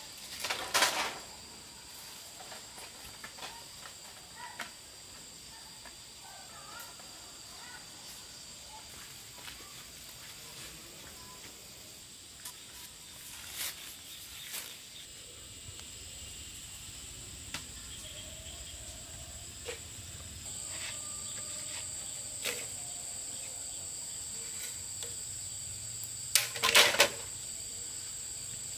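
Insects trilling steadily at a high pitch, with a few sharp knocks of bamboo poles: one clatter about a second in, a lighter knock midway, and the loudest clatter of several knocks near the end.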